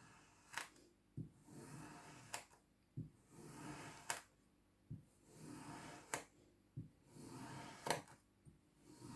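Kinetic sand being cut, soft crumbly slicing sounds repeating about every two seconds, each one starting and ending with a sharp click.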